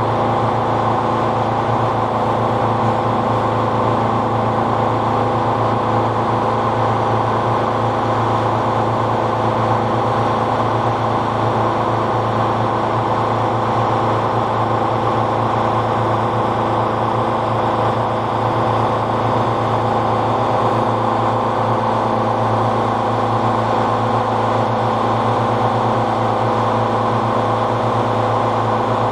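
Tuxing twin-cylinder high-pressure air compressor running steadily while filling an air bottle, giving a loud, even hum of unchanging pitch.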